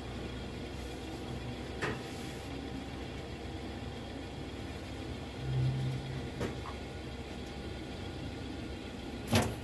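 Alarko Aldens condensing combi boiler running with a steady mechanical hum, with a few short clicks and a brief louder low hum about halfway through.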